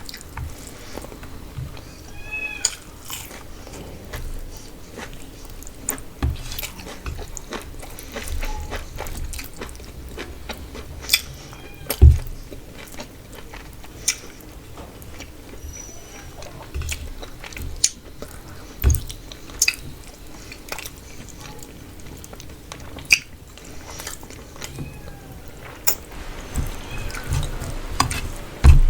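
Close-miked eating sounds: wet chewing, smacking and biting of rice and spicy fish curry, with many small sharp clicks and a few dull thumps.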